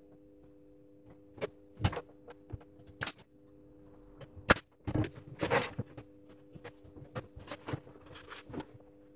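Wooden parts being handled during assembly: scattered light knocks and clicks, one sharp click about four and a half seconds in and a brief rub just after, over a faint steady hum.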